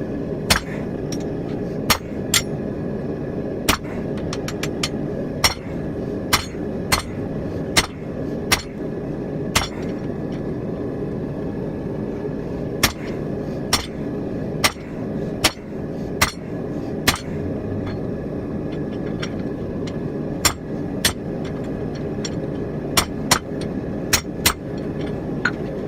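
Hand hammer blows on hot steel over an anvil, forging a rounding hammer head: sharp strikes in irregular runs with short pauses between them. A steady low rumble runs underneath.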